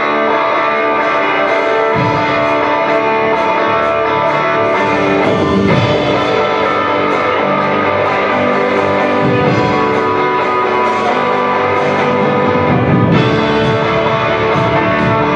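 Live worship band playing an instrumental passage led by electric guitar, with bass guitar and keyboard; the low end comes in about two seconds in.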